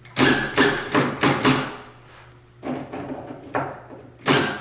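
Makita cordless drill driving a screw through a metal plant-hanger bracket into the wall, run in short bursts of the trigger: about five quick bursts in the first two seconds, then another near the end.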